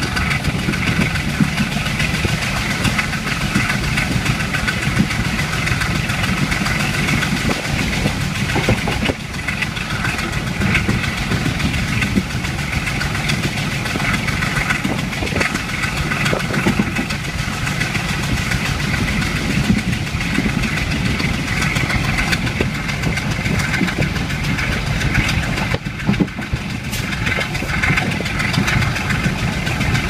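Steady running noise of a diesel passenger train heard from inside the carriage: a continuous low rumble with rattle of the wheels and carriage on the track.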